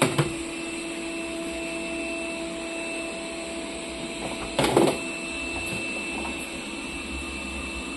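Steady mechanical hum with several held tones from a running household appliance, with a knock at the start and a short clatter about four and a half seconds in.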